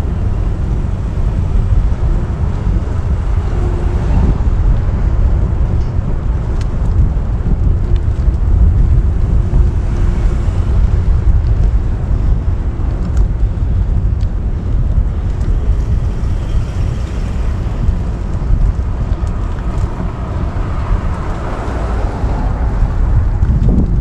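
Wind buffeting the microphone over a steady low rumble of a vehicle on the move.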